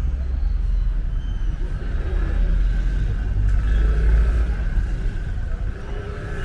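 Steady low rumble of street ambience, with road traffic in the distance.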